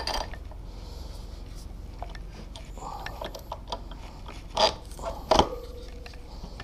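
Metal knocks and scraping as a front axle is worked through a motorcycle's wheel hub and fork leg during wheel refitting. Two louder knocks come about four and a half and five and a half seconds in, the second ringing briefly like struck metal.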